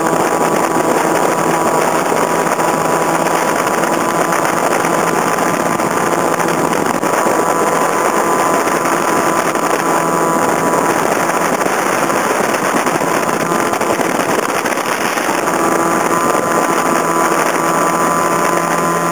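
Mekong speedboat's engine running steadily at speed, loud and even, mixed with a rush of wind and water; the engine note firms up a little near the end.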